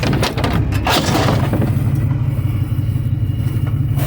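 Vehicle engine running with a steady low drone, with a few clattering knocks in the first second.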